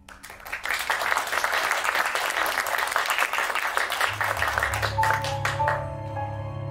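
Audience applauding at the end of a song. The clapping dies away after about five seconds as soft instrumental music comes in beneath it, with a held low note and a simple melody.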